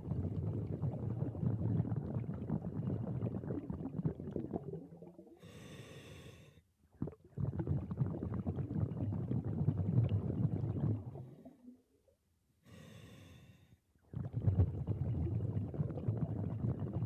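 Scuba diver breathing through a regulator: three long bubbling exhalations of about four to five seconds each, separated by two short hissing inhalations.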